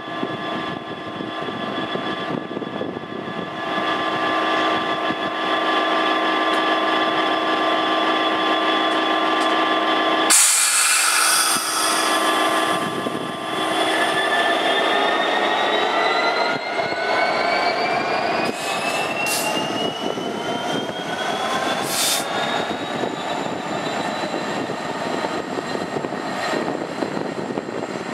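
Class 66 diesel locomotive's two-stroke V12 engine idling with a steady note. About ten seconds in there is a sudden loud hiss, then the engine note and a whine climb steadily in pitch as the locomotive powers up and pulls away.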